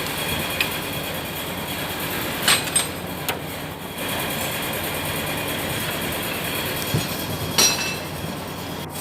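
A few sharp metallic clinks and knocks as steering-box parts (bearings, cups, washers) are handled and set down, the loudest about two and a half seconds in and again near the end, over a steady workshop hum.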